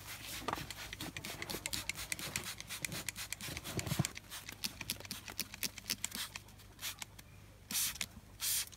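Hand trigger spray bottle being worked: a run of irregular short clicks and spritzes, then two louder hissing sprays near the end.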